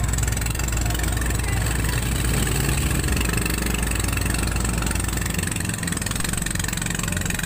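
Pump boat (outrigger bangka) engine running steadily at speed, heard from on board, with a strong low drone. About five seconds in the low drone drops and its beat becomes more distinct.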